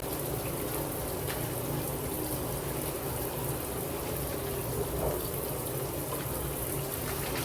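Hot shower running, water spraying steadily onto the shower floor.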